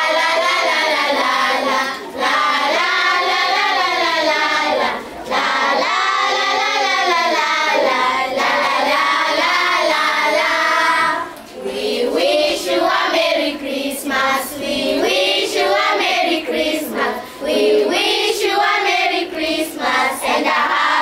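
A group of children singing together, in phrases broken by short pauses about 2 and 5 seconds in; from about 12 seconds in, the singing turns choppier.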